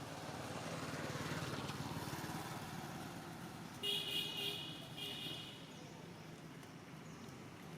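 A motor vehicle passes, and about four seconds in a horn sounds two short honks, the first a little longer than the second.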